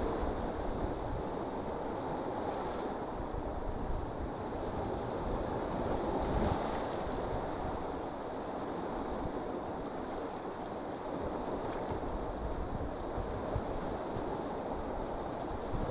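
Sea surf washing against a rocky shore, with wind buffeting the microphone in a steady, rough rush.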